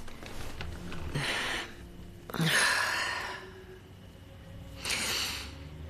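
A person's breathy sighs: three long exhalations, the loudest about two and a half seconds in.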